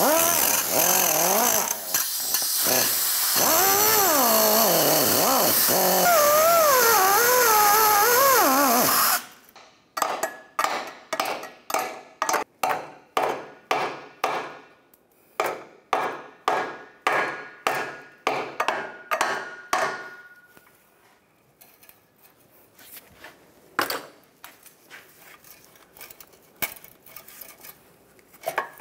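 A small handheld cut-off tool whines as its wheel cuts through rusted-on exhaust flange nuts that were too corroded to unscrew, its pitch sagging and rising under load, for about nine seconds. Then a hammer strikes the steel exhaust flange about twice a second, some twenty blows, to break the rusted joint apart, followed by a few scattered lighter knocks.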